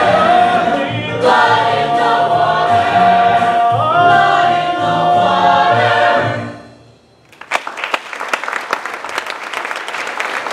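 Cast singing the closing held note of a musical-theatre number over instrumental accompaniment, one voice gliding up near the end. The music cuts off about six and a half seconds in and, after a brief pause, the audience breaks into applause.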